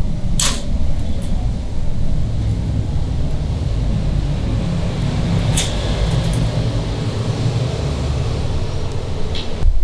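Steady low rumble, with a few sharp metallic clicks of tongs against the wire grill rack: one shortly after the start, one around the middle and one near the end.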